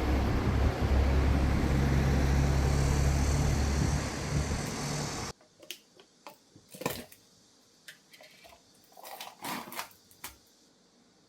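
An electric appliance motor runs loudly with a low hum for about five seconds, then cuts off suddenly. A few light knocks and clicks follow.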